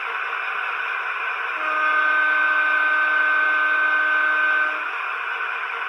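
A Dapol Class 68 model locomotive's DCC sound decoder sounding the diesel horn through its small onboard speaker: one steady horn note starting about a second and a half in and lasting about three seconds, over a steady hiss.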